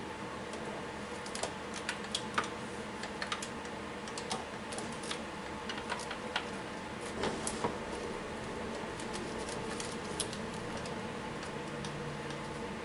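Scattered light clicks and ticks, irregular and bunched in the first two-thirds, over a steady low hum.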